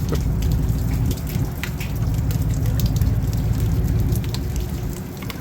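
Heavy rain pouring down, with many separate drops ticking close by over a steady dull low rumble.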